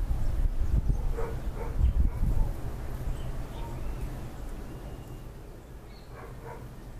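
A dog barking a few times: two short barks about a second in and two more near the end. Under them is a low rumble of wind on the microphone, heaviest in the first few seconds and then easing off.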